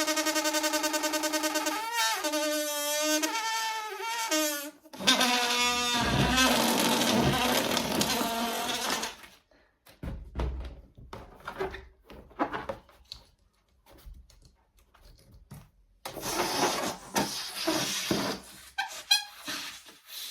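Latex balloons deflating. First a loud, steady squeal through the stretched neck that begins to warble about two seconds in. At about five seconds it breaks into a rush of escaping air that dies away, followed by light rubbery rustling and then another hissing, fluttering release of air near the end.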